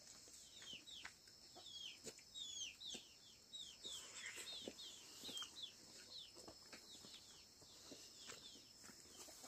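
Chickens peeping faintly: a quick run of short, high chirps that fall in pitch, about three a second.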